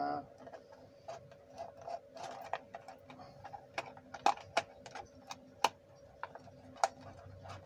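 Thin plastic water bottle crackling and clicking irregularly as hands squeeze and adjust it around a tree trunk, over a faint steady hum.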